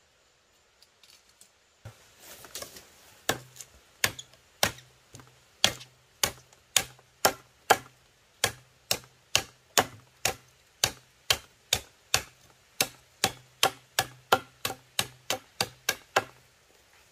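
Machete chopping at a bamboo pole in a steady rhythm of sharp blows, about two a second. A few lighter knocks about two seconds in lead into the chopping, which stops shortly before the end.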